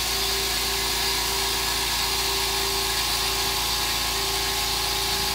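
California Air Tools 4710SQ ultra-quiet air compressor, its 1 hp oil-free piston motor-pump running steadily with an even hum.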